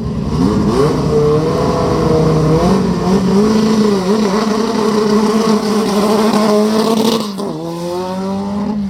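1983 Renault 5 Turbo Group B rally car's turbocharged four-cylinder engine accelerating hard. The note climbs, holds at high revs with small wavers, drops sharply about seven seconds in, then climbs again.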